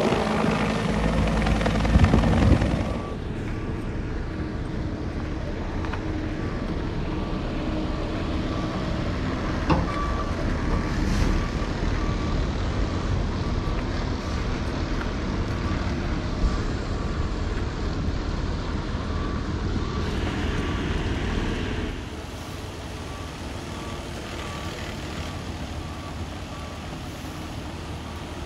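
A hovering rescue helicopter's rotor and engine noise, loudest in the first three seconds, then a steady rumble of idling emergency vehicles with a short high beep repeating evenly, like a truck's reversing alarm. The rumble drops in level about three quarters of the way through.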